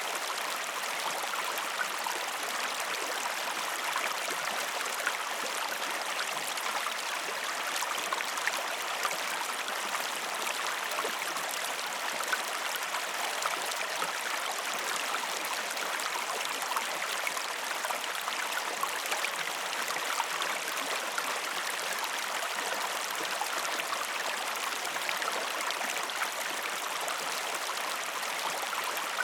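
River water flowing calmly, a steady gentle rush with small trickling and splashing ticks throughout.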